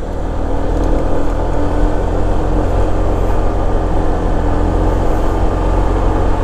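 Honda ADV150 scooter riding at a steady pace: wind rushing over the rider's microphone with the single-cylinder engine running underneath, fading in at the start and then holding steady.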